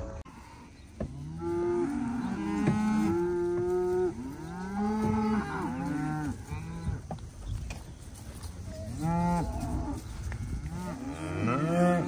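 Several cattle mooing and bawling, their calls overlapping and rising and falling in pitch, with a brief lull just past the middle.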